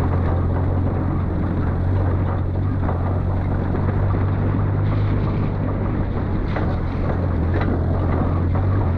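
A vehicle engine running steadily with a constant low drone, mixed with a rough rumbling noise and a few faint knocks in the second half.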